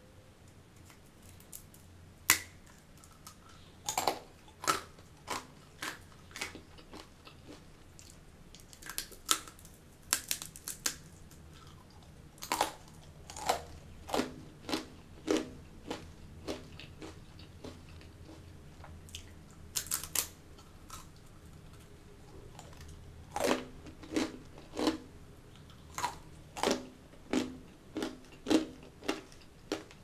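A person biting and chewing crunchy butter muruku, a fried rice-flour spiral snack. One sharp crack of a bite comes about two seconds in, then runs of crisp crunches with short pauses between them.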